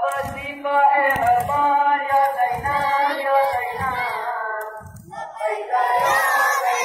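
A voice singing an Urdu noha, with a low beat under it. About five seconds in, a crowd of children's voices comes in, shouting together in unison.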